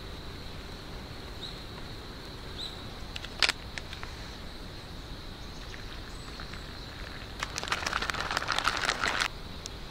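Plastic food pouch crinkling as it is handled: a dense run of crackles lasting about two seconds near the end, after a single click a few seconds in, over a steady faint high-pitched tone.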